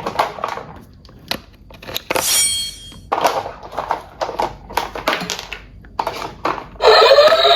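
A run of short clicks, knocks and crinkling rustles, like plastic toys or packaging being handled, with a brief hiss about two seconds in. Music with a synthetic sung melody starts loudly near the end.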